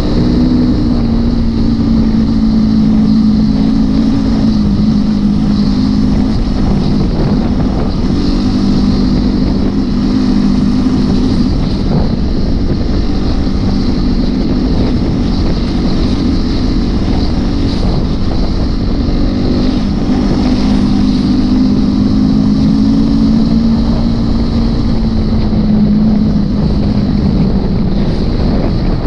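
Trail motorcycle engine running at steady riding revs, its pitch rising and dipping a little now and then as the throttle changes.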